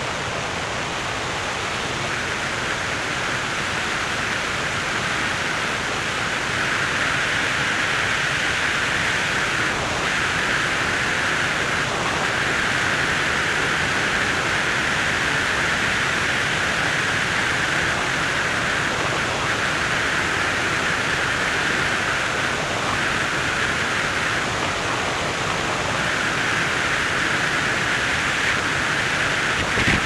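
Steady rush of wind noise from a car driving along the road.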